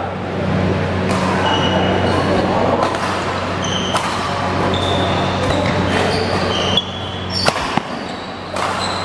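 Badminton doubles rally: rackets striking the shuttlecock in sharp cracks every second or so, with short high sneaker squeaks on the court floor. Underneath run a steady low hum and a background murmur of voices.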